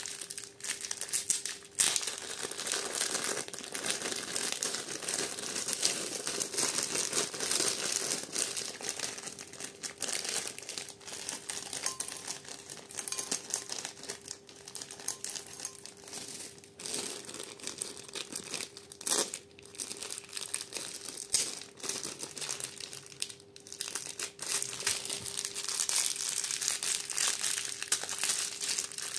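Thin plastic zip-lock bags of beads crinkling and rustling in the hands, with frequent small clicks.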